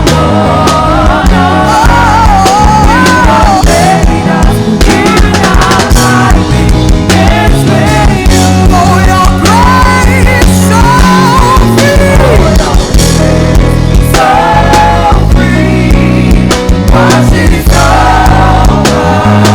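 Live worship band music with bass, drums and a wavering melody line on top.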